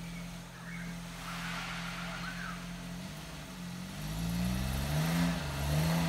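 A small hatchback's engine idles steadily, then revs up and down and gets louder from about four seconds in.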